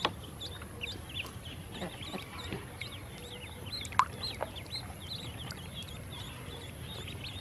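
A group of yellow ducklings peeping continuously, many short high chirps overlapping several times a second, with a few sharp clicks, the loudest about four seconds in.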